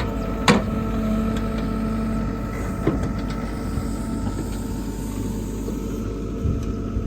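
Backhoe engine running steadily while digging, with a sharp knock about half a second in and a lighter one near three seconds.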